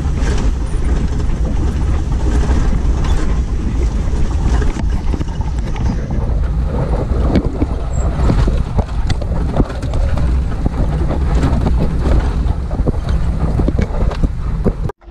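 Off-road vehicle driving a rough dirt trail: steady low engine and tyre rumble with wind buffeting the microphone and frequent small knocks and rattles from the bumpy ground. The sound cuts off suddenly near the end.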